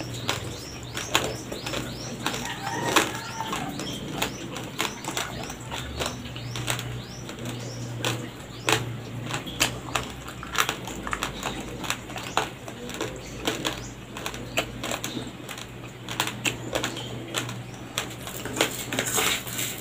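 Close-miked chewing of raw, uncooked rice: many irregular sharp crunches as the dry grains break between the teeth.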